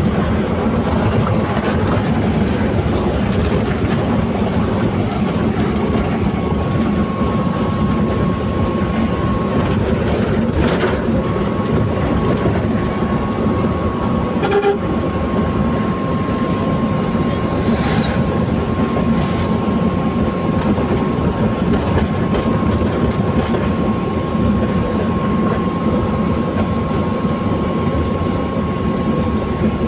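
A vehicle driving steadily along a paved highway, its road and engine noise running at an even level. A faint steady whine joins in about seven seconds in.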